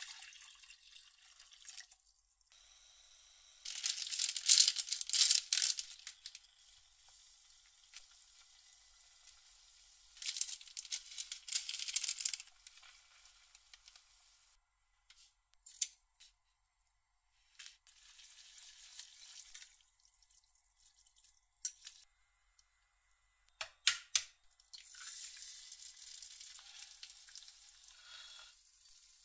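Stovetop cooking sounds: stretches of stirring and handling in a pot of boiling noodles. Near the end an egg is cracked on the rim of a frying pan with a couple of sharp knocks, then sizzles as it starts to fry.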